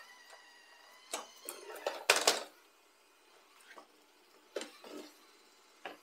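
Eufy X10 Pro Omni robot vacuum crossing a door sill by way of a ramp: a faint steady whine from its motors, broken by a series of knocks and clatters as its wheels and body bump over the edge. The loudest clatter comes about two seconds in, with smaller knocks later on.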